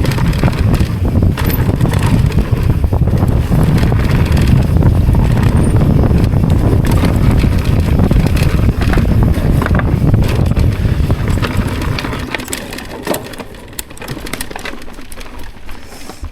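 Wind buffeting the microphone, with crunching and rattling from riding fast over rough, bumpy ground. It eases off about twelve seconds in, leaving lighter clatter.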